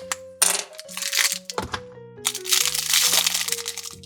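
Crinkly plastic wrapper being torn open and crumpled by hand, in several crackling spells, over light background music.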